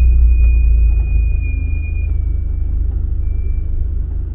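Volkswagen Kombi van's engine running low and steady, easing down to idle about a second in as the van slows to a stop, with a thin, steady high whine over it.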